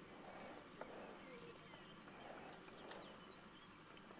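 Near silence: faint outdoor ambience with scattered faint bird chirps and a few soft clicks.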